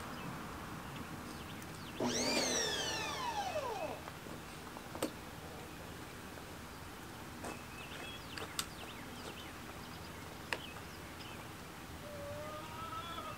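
About two seconds in, a loud animal call that falls steeply in pitch over about two seconds. A few single sharp taps follow, and near the end chickens begin clucking.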